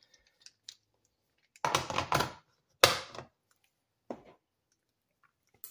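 Hard plastic and metal clacks of a T-handle ratcheting screwdriver and its bits being set into their moulded plastic case: a quick cluster of clacks a couple of seconds in, one sharp knock just after, and a lighter tap later.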